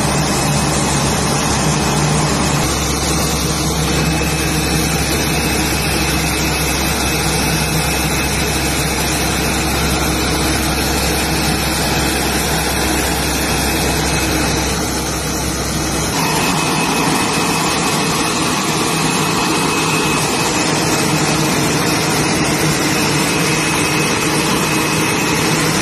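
Airport pushback tug's diesel engine running steadily, with a constant high whine over it. About 16 seconds in, the deep engine rumble drops away and the higher whine and hiss carry on.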